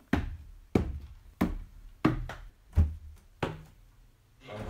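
Footsteps climbing a wooden staircase: six heavy treads about two-thirds of a second apart, ringing briefly in the wood-panelled stairwell, stopping about three and a half seconds in.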